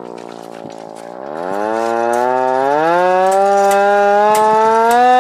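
LK-120 hand-cranked siren wailing: its pitch sags slightly, then about a second in it climbs steeply and grows louder as the crank speeds up, levelling off into a high steady wail. Faint regular clicks run above it.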